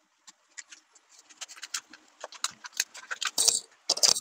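A sticker pack's packaging being opened by hand: a run of small crackles and rustles that grows busier, with two louder rustles near the end.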